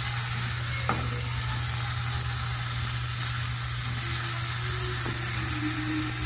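Diced tomato, onion and chile sizzling in a frying pan while being stirred with a wooden spoon: a steady frying hiss, with one light click about a second in.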